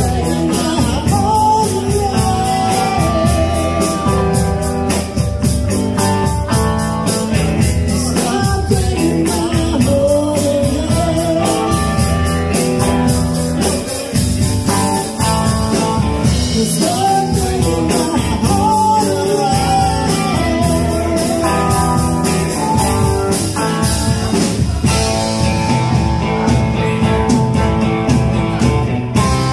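Live rock band playing: a woman singing lead with male voices joining, over electric guitars, bass guitar and a drum kit keeping a steady beat.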